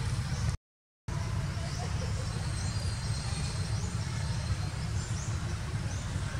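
Outdoor ambience: a steady low rumble with a small bird chirping repeatedly, short rising calls about every half second. Near the start the sound cuts out completely for about half a second.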